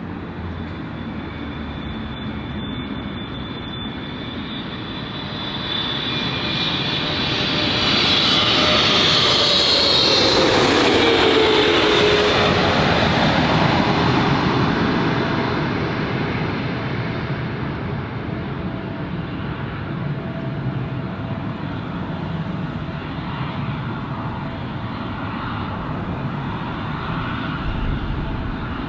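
Twin-engine jet airliner passing low overhead on final approach with its landing gear down: the engine noise swells to its loudest about eight to fourteen seconds in, with a whine that falls in pitch as it goes by, then eases off to a steady distant rumble.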